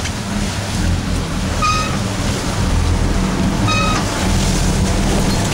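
Fishing boat's engine running steadily under wind and sea noise on deck. Two identical short high beeps sound about two seconds apart in the middle.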